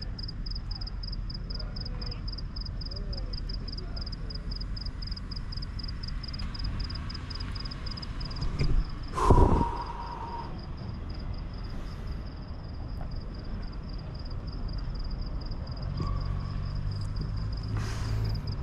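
Street traffic rumble with an insect chirping in rapid, even pulses throughout. About nine seconds in comes one loud sharp knock with a short ringing tone, and near the end a low engine hum swells as a vehicle passes.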